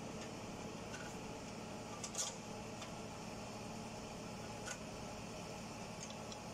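Steady hum of a floor fan, with a sharp light click about two seconds in and a smaller one near five seconds from hands working parts on top of a bare V8 engine on a stand.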